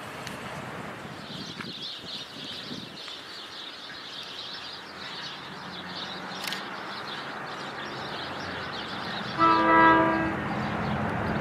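NJ Transit train's air horn sounding one short chord blast about nine seconds in, over the low hum of the approaching train.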